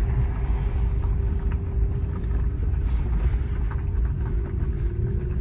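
Car driving along, heard from inside the cabin: a steady low engine and road rumble with a faint steady drone over it.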